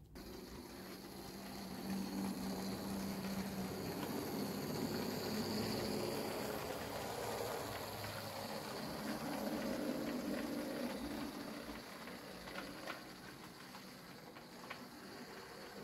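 00 gauge model diesel multiple unit running along the track: motor hum and wheels rumbling on the rails. The sound swells as it comes closer and fades toward the end, with a few light clicks near the end.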